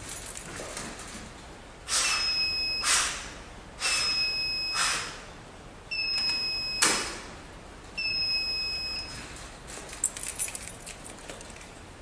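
High electronic beep from the fire alarm system, about a second long, sounding four times about two seconds apart. Short puffs of breath are blown into the removed smoke detector head between the beeps, and a few light plastic clicks follow near the end.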